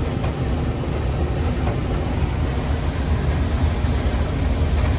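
Combine harvester running under load while harvesting corn: a steady low engine drone with the hum of the threshing machinery.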